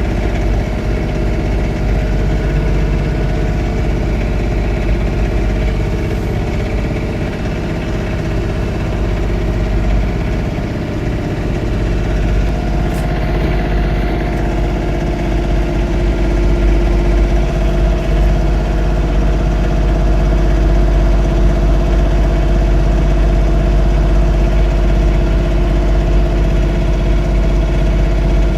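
John Deere 3046R compact tractor's diesel engine running steadily while snow blowing, a constant drone with heavy low rumble. It gets a little louder and slightly higher in pitch about halfway through.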